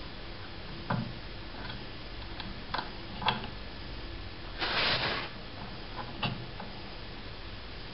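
A few small clicks of a 2 mm Allen key working the grub screw of a gas spring's side release valve, with a short hiss about five seconds in as gas is let out to lower the spring's force.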